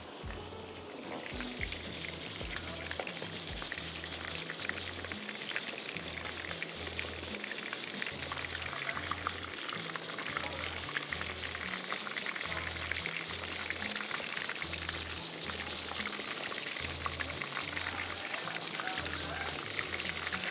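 Minced-meat cutlets sizzling steadily as they shallow-fry in a little olive pomace oil in a frying pan, a constant dense crackle of spitting oil.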